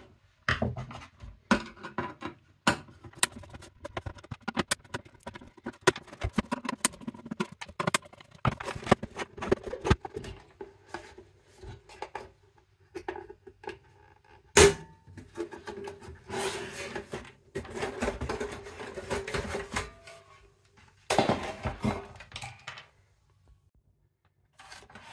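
Hands and a screwdriver taking apart a VHS video recorder's casing: a run of clicks and knocks of plastic and sheet metal, the front panel's plastic clips being pried loose, with a sharp knock about halfway through and a few longer scraping stretches after it.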